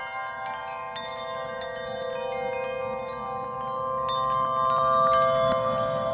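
Ringing chime tones: new notes struck every half second or so and left to ring over one another, with a low drone growing louder about four seconds in.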